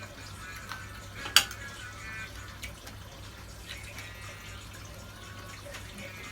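A few light clicks and taps, with one sharp, loud click about a second and a half in, over a steady low hum and faint high tones.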